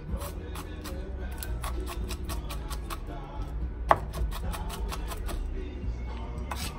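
Chef's knife chopping onion on a plastic cutting mat: a run of quick, uneven knocks of the blade, with one louder strike about four seconds in.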